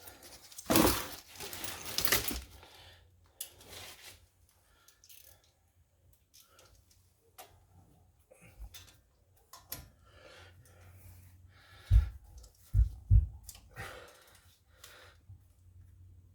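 Hand tools being handled on a vehicle's front hub: irregular metal clicks and clinks, loudest in the first couple of seconds, with three low thumps about twelve to thirteen seconds in.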